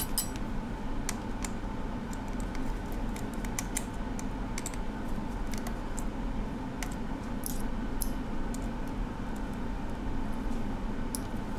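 Faint, scattered light clicks and ticks of a precision screwdriver working the small screws inside an opened iPhone 6 Plus, over a steady low hum.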